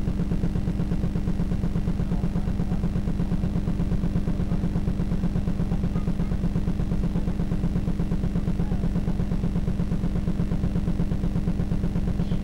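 Steady low mechanical hum with a rapid, even pulsing, unchanging throughout.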